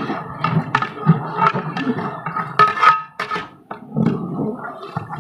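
Long metal ladle stirring thick kheer in a large aluminium degh, knocking and scraping against the pot's sides in irregular strokes.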